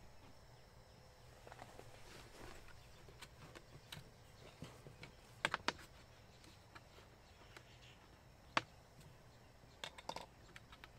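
Quiet handling noises: a few short, sharp clicks and knocks as a plastic water bottle and a metal cup are picked up and set down on a plastic storage tote lid, the loudest around halfway through.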